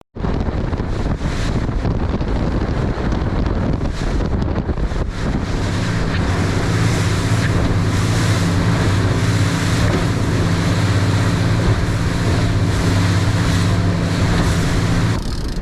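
A boat's engine running steadily under heavy wind noise on the microphone, with the rush of water along the hull. The engine's low hum grows stronger about five seconds in and cuts off suddenly near the end.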